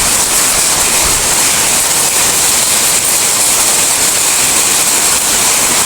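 Hailstorm: hail and heavy rain pelting down as a loud, dense, steady hiss.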